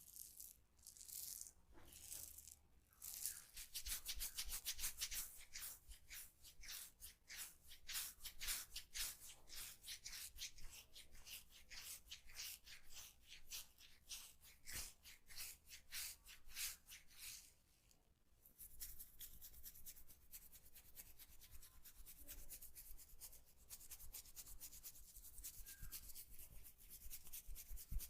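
Hands rubbing briskly through hair and over the scalp in a head massage: a few slow strokes at first, then a long run of fast, even rubbing strokes, which gives way after about eighteen seconds to a softer, more continuous rub.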